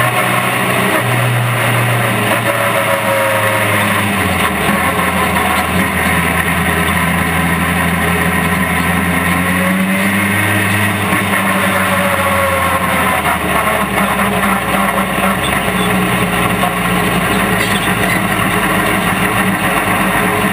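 Class 8 autograss single-seater's engine running hard, heard from on board the car, its note dropping and picking up again a few times as the car is driven on the dirt track.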